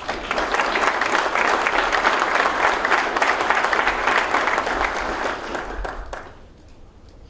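Audience applauding, starting at once and dying away about six seconds in.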